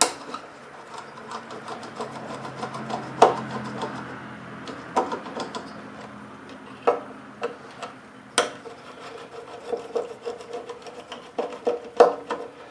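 Small screws holding a lawnmower carburetor to its fuel tank being backed out with a hand tool: continuous scraping and rubbing with many small clicks, and five sharper clicks spread through.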